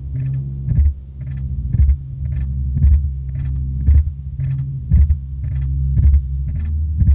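Background music: a low bass line of held notes under a steady beat of sharp, clicking percussion, about two hits a second.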